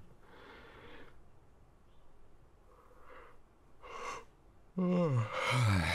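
A young man's voice: a short sharp breath in about four seconds in, then a voiced groan falling in pitch and a long, loud exhaled sigh near the end. A faint rustle in the first second.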